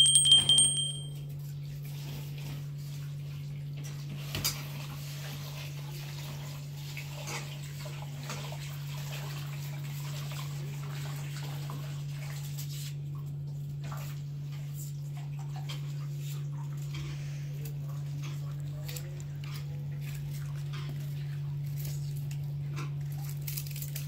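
Onions being peeled by hand with small knives: faint scraping and scattered clicks, with the odd small plop into a pot of water, over a steady low hum. A short bright ringing ding sounds in the first second.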